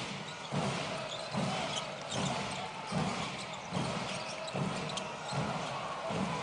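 Basketball arena game sound: steady crowd noise with a low thump repeating about every 0.8 seconds, and short high squeaks from the court.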